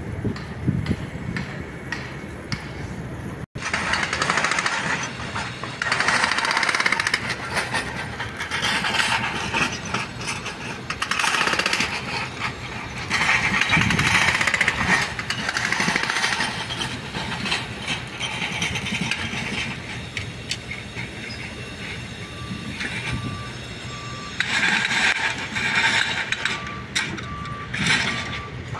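Construction-site machinery working, with noisy surges of rattling and clanking that come and go every few seconds. A short high beep repeats during the last several seconds.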